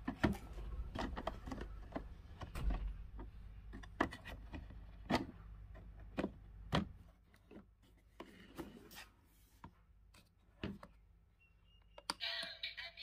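Plastic clicks and knocks from a toy make-up suitcase being handled: the lid shut and its plastic side latches snapped, a string of sharp clicks that thins out. Near the end, a press on a heart button on the lid starts the toy's electronic tune.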